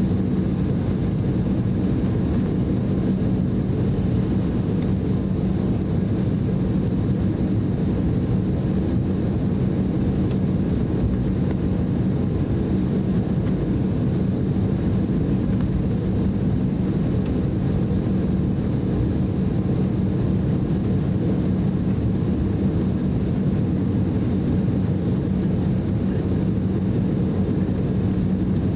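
Cabin noise of an Embraer E190 airliner taxiing: its twin turbofan engines running at low taxi power, a steady drone with a faint high whine above it.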